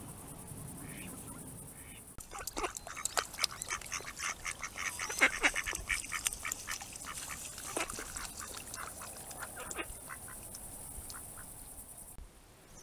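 Mallards calling: a rapid run of short quacks starts about two seconds in, is loudest around the middle and thins out toward the end.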